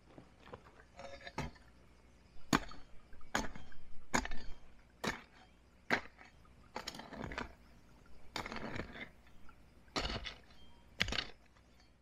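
A hand hoe chopping into soil, with repeated sharp strikes about once a second and short scraping between some of them.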